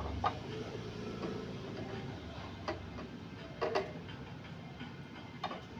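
A few sharp, irregularly spaced clicks and knocks as the parts of a clamp-on microphone stand are handled while a microphone is fitted to it, over a low rumble that fades about three seconds in.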